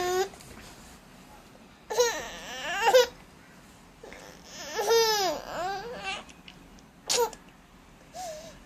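A baby babbling and squealing in several high-pitched vocal bursts of about a second each, with short gaps between, edging toward fussing.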